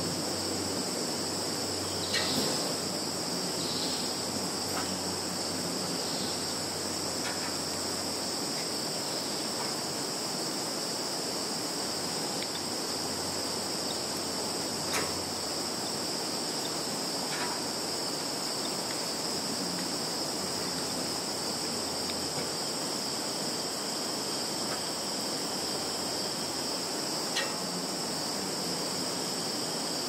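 Field insects singing in a continuous, steady high-pitched chorus, with a few faint short ticks now and then.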